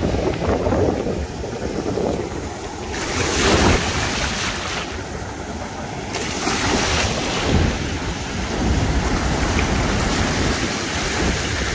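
Surf washing up the beach around the legs, the waves swelling and easing every second or two, with wind buffeting the microphone.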